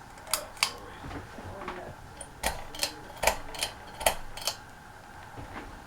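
Ceiling fan pull-chain switch clicking: four pulls, each heard as a pair of sharp clicks about a third of a second apart, stepping the fan through its speed settings.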